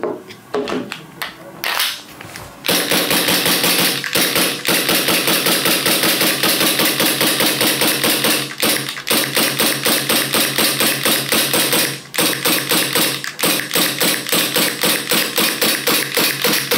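WE Glock-style gas blowback airsoft pistol. It starts with a few clicks as the magazine goes in. Then it fires shot after shot at about four a second, with two short breaks, the metal slide snapping back each time, as a full green gas charge is emptied.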